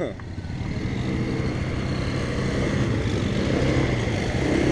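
ATV (quad bike) engines running at low revs, a steady low hum.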